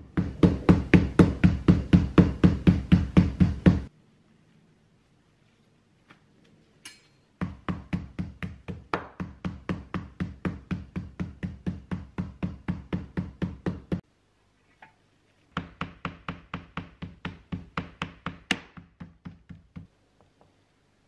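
Raw pork cutlets being pounded with a tenderising tool on a paper towel over the countertop: quick, even knocks at about five a second, in three runs with short pauses between.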